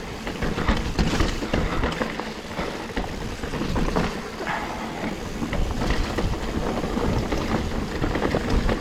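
Mountain bike riding over a wet, rooty singletrack: tyres rolling and knocking over roots, with the bike's chain and frame rattling and wind buffeting the microphone.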